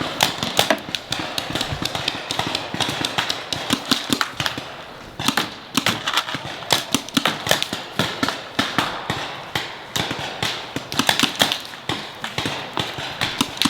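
Paintball markers firing: rapid, irregular pops and cracks, several a second, in quick volleys.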